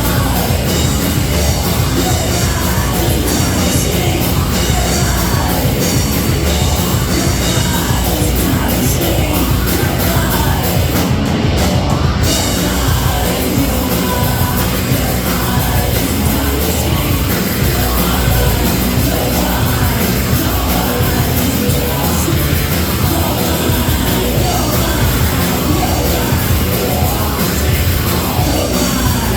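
Heavy rock band playing live and loud, with sung and shouted vocals over a dense, steady wall of guitars and drums. The cymbals drop out briefly about eleven seconds in.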